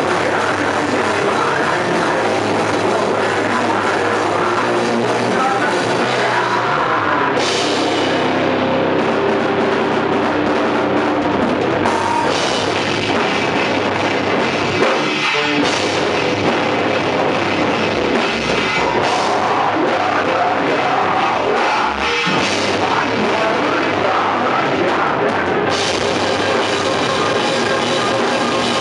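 Live heavy rock band playing loud: distorted electric guitars and bass over a pounding drum kit with cymbals.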